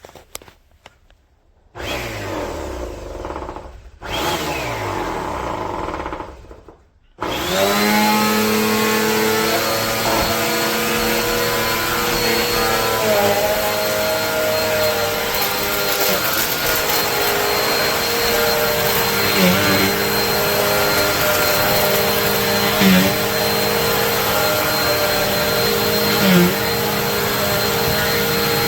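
Bissell AeroSwift Turbo Compact upright vacuum cleaner starting up about seven seconds in, then running steadily with a high whine. Its pitch dips briefly three times near the end.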